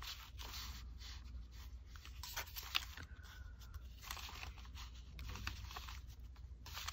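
Faint rustling and scraping of a cut paper piece being handled and slid over a journal page, with a few small ticks.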